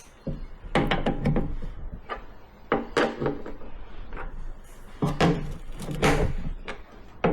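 Hand tools clicking and knocking against metal as the fuel pump's mounting bolts are snugged down on the underside of a motorcycle fuel tank. The clicks come irregularly, in several clusters.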